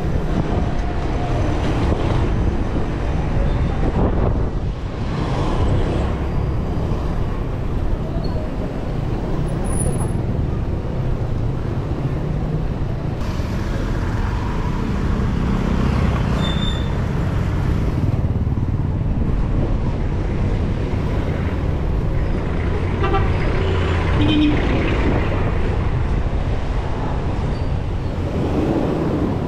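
Steady traffic and wind noise from riding through city streets among other vehicles, with a vehicle horn tooting briefly about three quarters of the way through.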